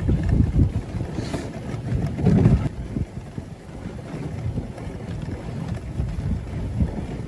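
Wind buffeting the microphone on a moving dog sled, over the hiss and rumble of the sled running across snow, gusting loudest about two seconds in.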